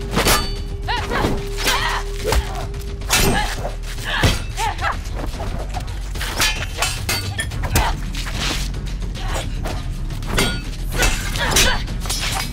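Movie fight sound effects: a rapid series of sharp hits and blows, some with a shattering crack, with short effort grunts, over a music score.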